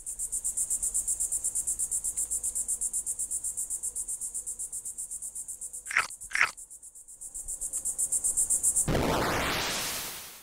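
High, pulsing cricket-like insect trill, about eight pulses a second, with two short falling chirps a moment apart near the middle. About nine seconds in, a whoosh sweeps in over it and fades away, and the trill stops.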